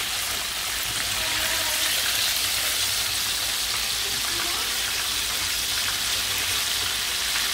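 Breaded chicken thighs deep-frying in hot oil in a pan: the oil sizzles steadily.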